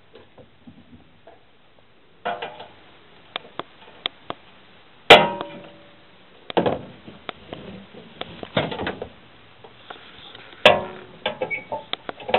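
Metal clinks and knocks from sheet-metal electrical boxes and their fittings being handled, in scattered clusters, with two sharp loud bangs, the first about halfway through and the second near the end.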